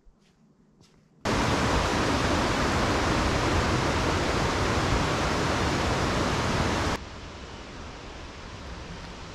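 Steady rush of running water from a mountain stream, cutting in abruptly about a second in and dropping to a quieter rush about seven seconds in.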